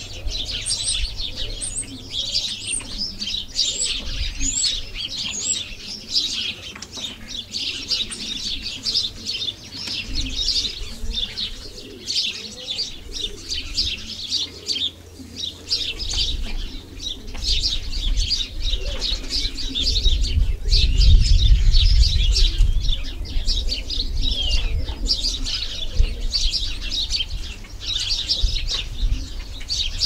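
Many small songbirds chirping in a dense, continuous chorus of quick high calls. Beneath it runs a low rumble that grows louder around twenty seconds in.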